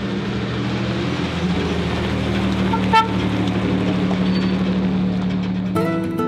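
1965 Ford F100 pickup truck driving by, its engine running with a steady hum that grows louder as it approaches, with a brief high chirp about halfway through. Acoustic guitar music comes in near the end.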